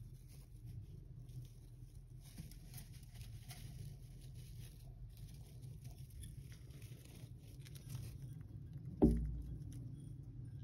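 A hamster rustling about in wood-shaving bedding, with faint small clicks and patters. One dull thump about nine seconds in.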